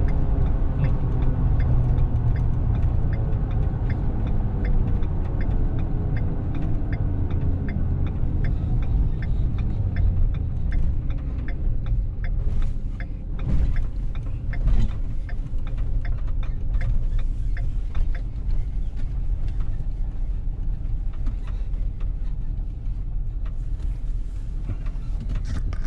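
A vehicle driving, heard from inside the cab: steady low engine and road rumble, with a run of quick, regular light ticks.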